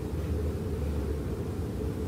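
Steady low room rumble with no distinct events.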